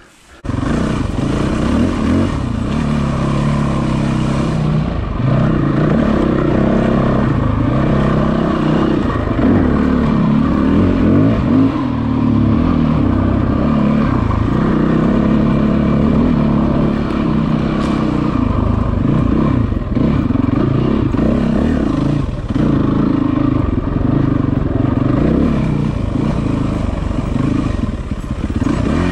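Yamaha WR450F's 450 cc single-cylinder four-stroke engine starting about half a second in, then running and revving up and down under changing throttle as the bike is ridden.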